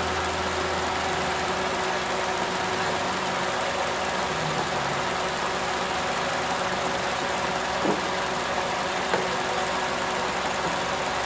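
Car engine idling steadily under the open hood, with two light clicks in the last few seconds.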